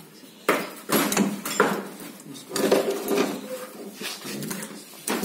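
Steel gears and shafts of a synchromesh gearbox knocking and scraping against the cast aluminium gearbox casing and selector forks as the gear cluster is handled, in a run of irregular clanks and rattles.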